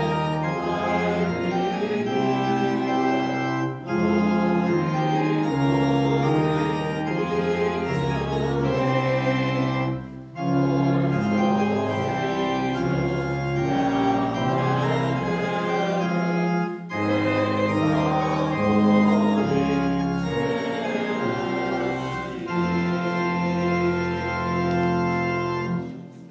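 Organ playing a hymn in held chords, in phrases separated by brief breaks, closing on a final chord that cuts off near the end and rings briefly in the room.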